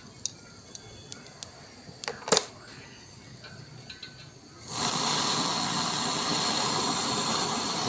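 A few sharp clicks, then a gas brazing torch starts hissing suddenly, about halfway through, and burns with a loud, steady hiss.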